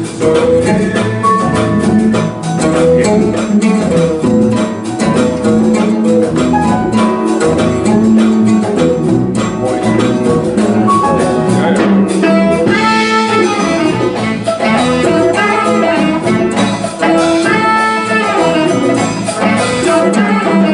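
Live jazz-fusion band playing: a saxophone and brass melody over piano, guitars and congas, with a steady drum pulse.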